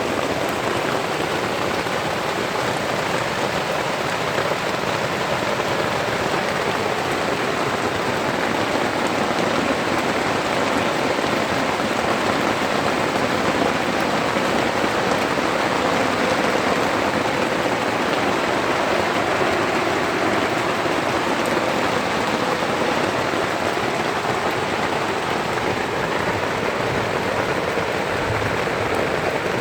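Heavy downpour, rain falling steadily and evenly with no let-up.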